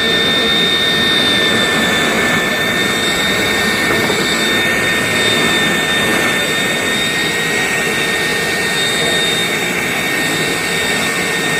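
Numatic vacuum cleaner running steadily: a loud motor whine at a fixed high pitch over a rushing hiss of air.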